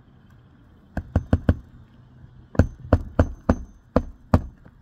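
Claw hammer striking a nail under a lifted asphalt shingle tab: a quick run of four blows, then six more spaced a little further apart, the later ones with a faint high metallic ring.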